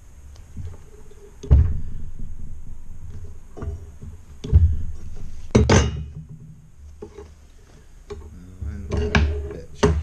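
A key machine's steel electric motor housing and its end cover being handled and set down on a workbench during reassembly: several separate thunks and metal clanks, one about halfway through with a short metallic ring.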